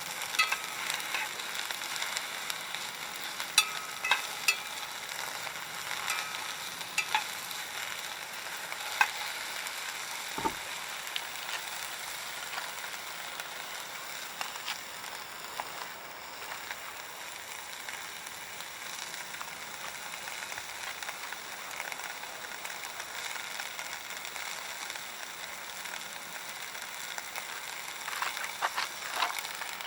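Cooking over a conifer-wood fire: a steady sizzling hiss with scattered sharp pops and crackles from the burning firewood. The pops come thickest in the first ten seconds and again near the end.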